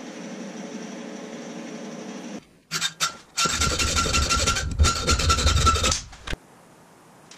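Hand file rasping on steel at the vise: two short strokes, then two long strokes of about a second each, with a steady ringing tone through them. Before that, a steady hum for the first couple of seconds.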